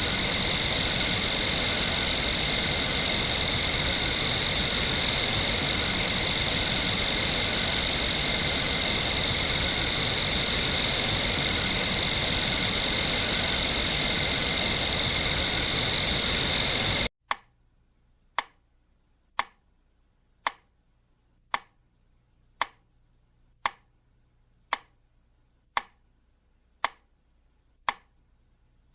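A steady cricket chorus, a constant high-pitched trill over a hiss, cuts off suddenly about 17 seconds in. Then a metronome ticks evenly, about once a second.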